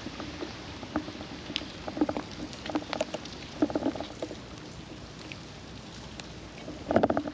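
Rain pattering: a steady hiss with irregular taps and knocks, and a louder cluster of knocks near the end.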